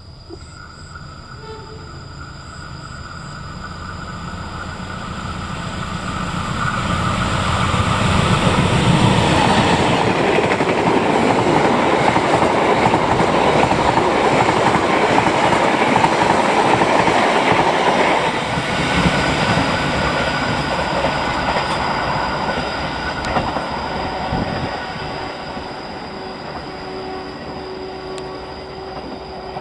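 Train passing by on the line: a low rumble builds over about eight seconds, the wheels on the rails are loudest for about ten seconds, then the noise slowly fades as the train moves away.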